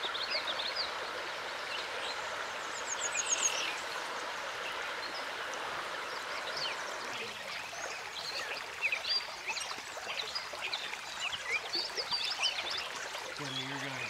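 Shallow trout stream running over a riffle, a steady rush of water, with many short high chirps scattered over it, thickest in the second half.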